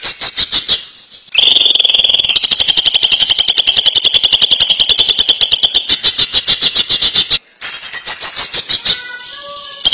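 Cucak ijo (greater green leafbird) singing its fast rattling 'ngentrok' song: a rapid string of sharp, high notes, about ten a second. The notes come in runs, with a short gap about a second in, a long unbroken run of about six seconds, and a brief break near the end.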